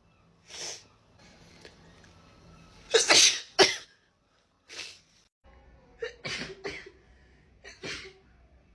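A woman sneezing over and over in a sneezing fit, several sudden sneezes with the loudest about three seconds in and a quick cluster of them past the middle.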